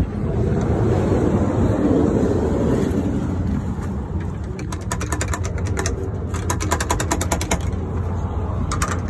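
Two runs of rapid mechanical clicking, roughly ten clicks a second, each lasting about a second, over a steady low motor hum.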